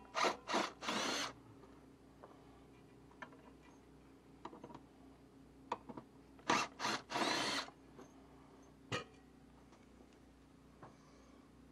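Cordless drill-driver run in short bursts on the screws of a small cooling fan. There are three quick runs at the start and a second cluster about six and a half seconds in, each one speeding up and slowing down, with a few light clicks between them.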